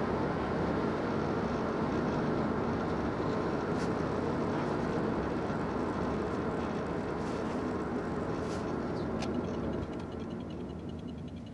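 Steady road and engine noise heard inside a moving car's cabin. It eases off near the end as the car slows.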